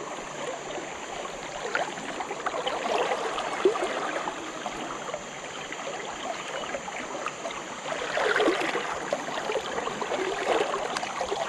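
Shallow river current rushing and gurgling steadily close at hand, swelling a little louder about eight seconds in.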